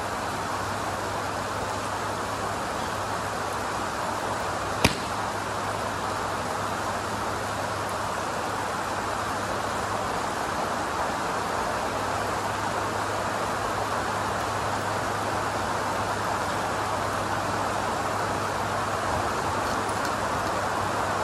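Steady hiss of rain with a low hum beneath it. About five seconds in comes one sharp crack: a Mizuno MP-33 blade iron striking a golf ball.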